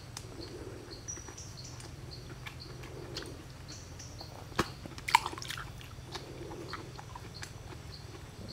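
Riverside forest ambience: short high chirps repeating a few times a second, from birds or insects, over a low steady hum. Two sharp clicks about halfway through are the loudest sounds.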